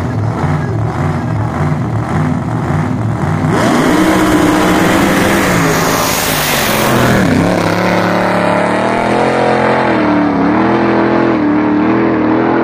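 Drag car's big V8 idling on the start line with a pulsing, lumpy beat, then launching about three and a half seconds in and running at full throttle down the strip. The engine note climbs, dips at a gear change, climbs again, and is loudest as the car passes by.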